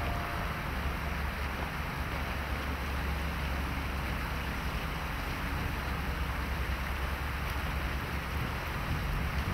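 Wind buffeting the microphone: a steady, even rush of noise with a constant low rumble, and no distinct events.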